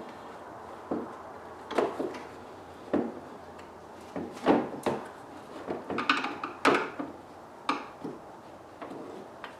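Parts and tools being handled during a cold air intake install: a string of irregular knocks, taps and clatters, with a busier, sharper cluster about six to seven seconds in.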